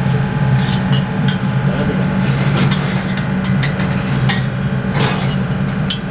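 Long steel spatula scraping and clinking against a large stainless steel kadai in irregular strokes while dry whole spices and onion are stir-roasted, over a steady low kitchen hum.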